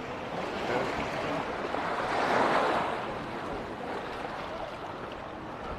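Small sea waves washing onto sand and rocks, one wave swelling louder about two seconds in and then easing off.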